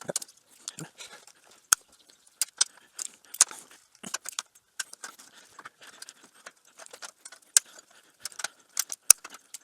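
Irregular sharp metallic clicks and clinks of hand tools against a cast iron door grid as its small feet are worked off.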